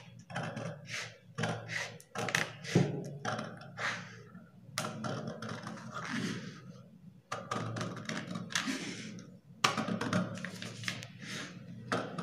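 Scissors cutting through stiff brown pattern paper in repeated short snips, about two a second with a few brief pauses.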